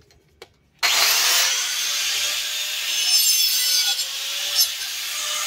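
Angle grinder with a cutting disc switched on about a second in and cutting through a PVC water pipe: a sudden loud start, then a steady motor whine under the rasp of the disc on the plastic.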